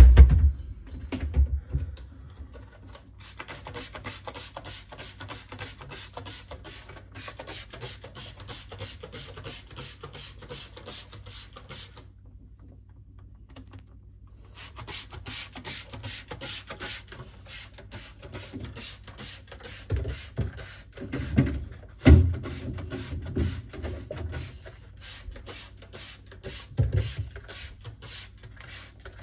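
Background music with a steady, beat-driven rhythm of about four beats a second that drops out for a couple of seconds before the middle. A few low thuds sound in the second half.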